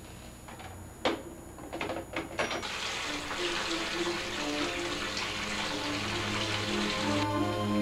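A telephone handset is set down with a sharp clack about a second in, followed by a few small knocks. Then a bathtub's cross-handle tap runs a steady stream of water into the drain, stopping abruptly near the end. Music with held notes fades in under the running water and carries on after it.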